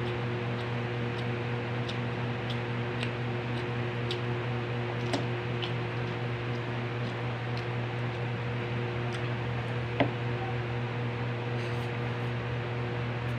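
Electric fan running with a steady hum and hiss, under faint clicks of chewing and eating rice by hand. One sharper click about ten seconds in.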